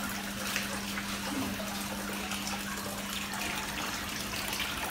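Dirty koi pond water pouring from a hose into a plastic bucket, a steady gushing splash as the pond is drained for cleaning. A steady low hum runs underneath and grows fainter about two seconds in.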